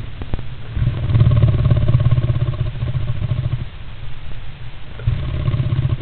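Great spotted woodpecker preening inside a wooden nest box, its feathers and body rubbing and scraping against the box close to the microphone: a low rumbling rustle that swells twice, with a few sharp clicks near the start.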